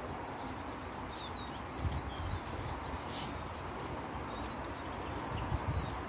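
Small songbirds chirping: short, quick high chirps scattered throughout, over a steady low rumble.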